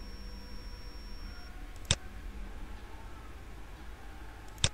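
Computer mouse clicking twice, one sharp click about two seconds in and another near the end, as points of a curved line are placed, over a faint steady background hum.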